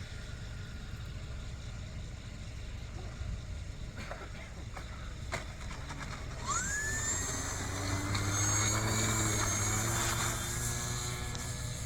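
RC scale Cessna 182 model airplane's motor and propeller: a faint low rumble, then about halfway through the throttle opens and the motor's whine rises quickly in pitch and holds, growing louder as the model powers up.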